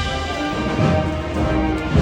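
Processional band music: a brass and wind band holding sustained chords over bass-drum beats.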